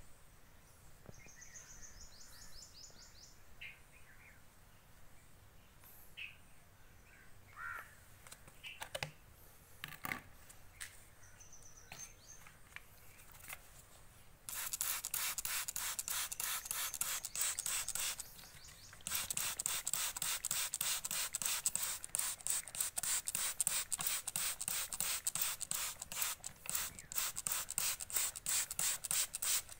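Hand trigger spray bottle pumped rapidly, misting water onto potted soil in a fast run of hissing squirts. It starts about halfway in and stops for about a second before carrying on. Before it come faint bird chirps and a few soft handling clicks.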